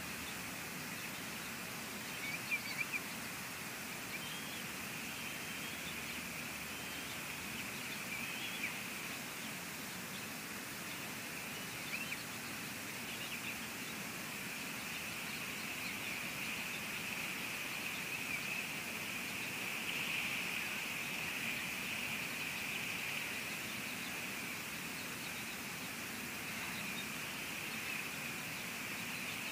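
Steady hiss of rain and wind on an outdoor nest-camera microphone, with a few faint high chirps and a couple of short sharp clicks.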